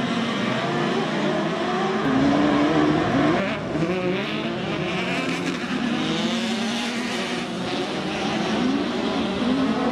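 A pack of autocross buggies racing on a dirt track, several engines revving at once, their pitches rising and falling and overlapping.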